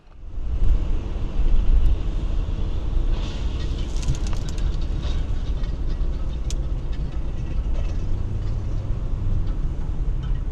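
Road noise inside a moving car picked up by a dashcam: a loud, steady low rumble. A few sharp clicks and knocks come between about three and seven seconds in.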